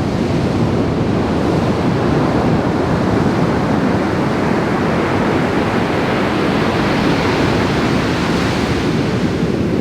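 Loud, steady rushing noise outdoors, even throughout, of the kind wind buffeting the microphone or surging water makes.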